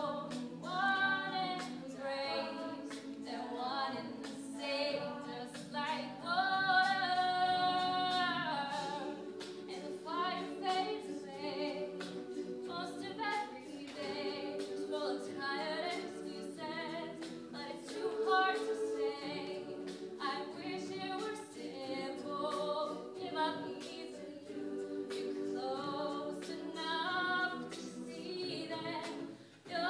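All-female a cappella group singing with no instruments: a solo voice carries the melody over sustained backing harmonies from the group, breaking off briefly near the end.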